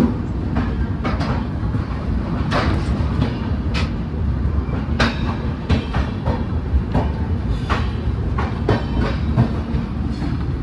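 Passenger train running on the track, heard from an open coach doorway: a steady low rumble with irregular clacks and knocks of the wheels over rail joints and points.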